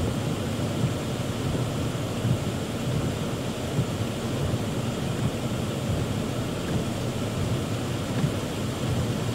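Heavy rain pouring onto a car, heard from inside the cabin as a steady rushing noise whose loudness wavers slightly.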